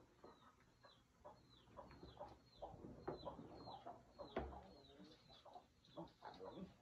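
Faint chickens clucking, with a run of short, high, falling peeps repeating two or three times a second. A dull knock stands out about four seconds in.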